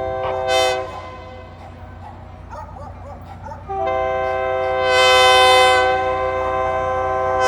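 Diesel locomotive's multi-chime air horn sounding for a grade crossing: a short blast at the start, then a long blast from about three and a half seconds in, each a steady chord of several tones. A steady low rumble runs underneath.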